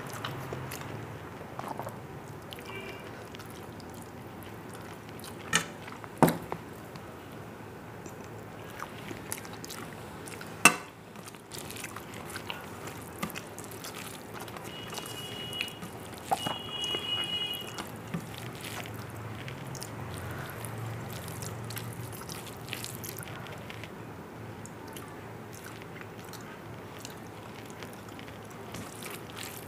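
A person eating rice and duck egg curry by hand: chewing and mouth sounds, with fingers squishing the rice on a steel plate. A few sharp clicks come through, the loudest about a third of the way in.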